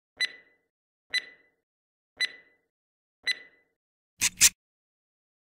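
Cartoon intro sound effects: four short clicky blips about a second apart, then two quick noisy swishes close together, louder than the blips.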